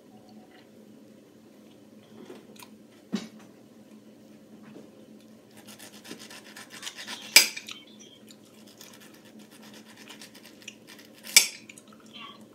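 Table knife cutting pineapple and clinking and scraping against a plate. There are three sharp clinks, the loudest about seven seconds in, just after a run of rapid scraping.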